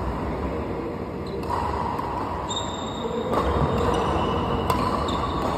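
Badminton doubles rally: a few sharp racket hits on the shuttlecock, with drawn-out high squeaks, over a steady background noise in the hall.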